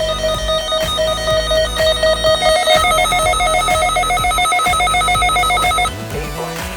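Weather radio receiver's electronic alert beeping: a rapid beep, about six a second, that steps up in pitch about a third of the way in and cuts off near the end.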